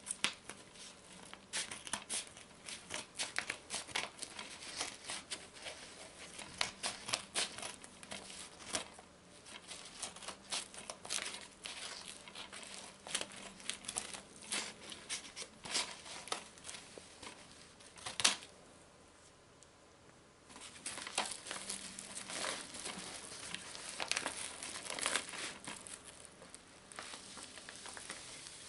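Scissors cutting open a brown paper envelope, the paper crinkling and tearing in quick crackling runs. A single sharp snap comes a little past the middle, then after a short lull the paper rustles and crackles again as the package is pulled open and a shrink-wrapped DVD case slides out.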